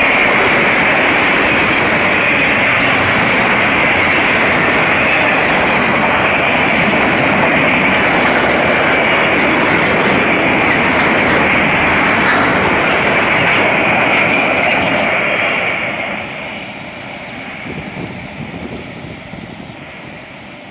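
Freight train of autorack cars rolling past at close range: a loud, steady rush and clatter of steel wheels on rail. The noise drops off sharply about sixteen seconds in.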